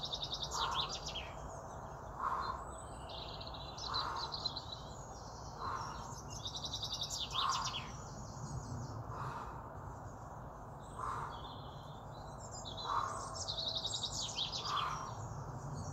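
Songbirds chirping and singing in fast trilled phrases, with a short lower note repeating about every two seconds.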